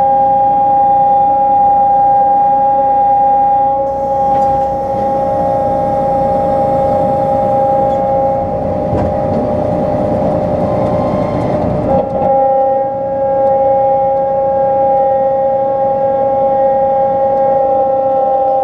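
John Deere 9500 combine running at working speed, a steady high whine from its drives. A heavier rushing noise joins it from about four seconds in and drops away about twelve seconds in.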